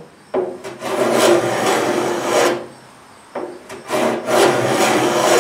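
Hand plane shaving along the edge of a white oak tabletop in two long strokes, about two seconds each, to knock the sharp edge off.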